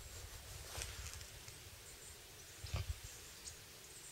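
Faint, thin, very high-pitched chirps of small songbirds in dense forest brush, a few short calls scattered through. A single low thump with a click comes a little before three seconds in.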